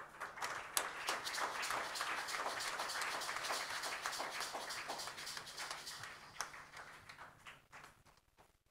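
A congregation applauding: many hands clapping irregularly, starting abruptly, holding for several seconds and then thinning out near the end.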